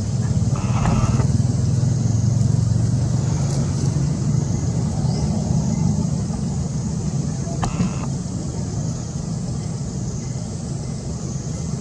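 Steady low engine-like rumble with a steady high hiss above it. Two brief higher sounds come about a second in and again near eight seconds.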